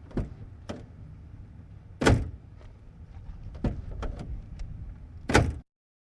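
Old truck: a low rumble under a series of sharp metal clunks and knocks, the loudest about two seconds in and again near the end, then the sound cuts off to silence.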